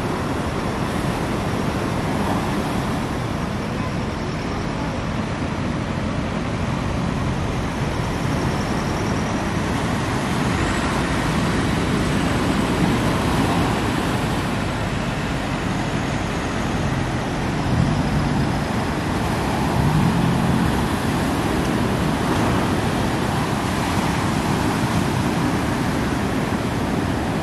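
Tractor engine running steadily as it pushes a boat trailer down a beach into the surf, mixed with the continuous rush of breaking waves. The engine swells briefly a couple of times near the end.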